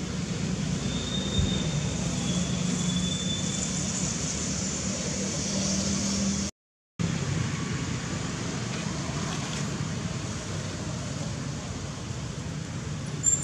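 Steady outdoor background noise with a low hum, of the kind traffic or a motor makes, broken by half a second of silence about halfway through; a faint high whistle sounds briefly in the first few seconds.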